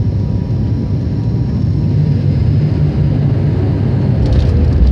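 Passenger aircraft on its landing roll, heard from inside the cabin: a loud, steady low rumble of the engines and wheels on the runway, with some rattling and a thump near the end.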